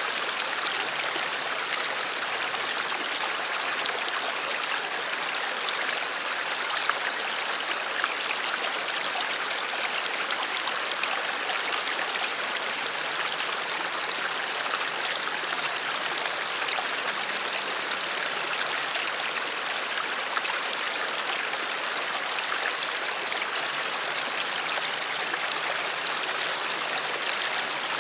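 Shallow stream flowing steadily over stones, a constant hiss of running water with small scattered splashes.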